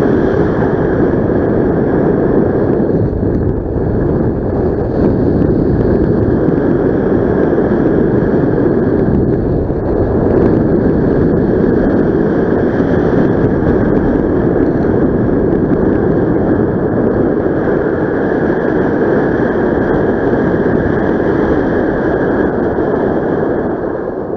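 Loud, steady rush of airflow buffeting the microphone on a paraglider in flight, cutting off suddenly at the end.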